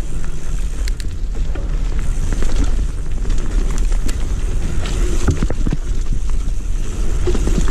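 Wind rumbling on the microphone and tyres rolling over a dirt trail as a hardtail mountain bike rides downhill, with scattered clicks and knocks from the bike rattling over bumps.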